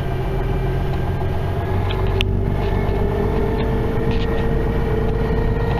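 Engine and road noise of a moving vehicle heard from inside its cabin: a steady low rumble with a whine that rises slightly in pitch after about two seconds.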